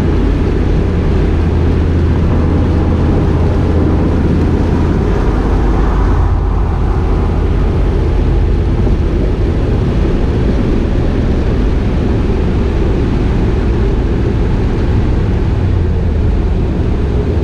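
Inside a moving 1993 Chevrolet Camaro Z28 with both windows down: a steady, loud rush of wind through the open windows over a deep rumble of road and engine noise.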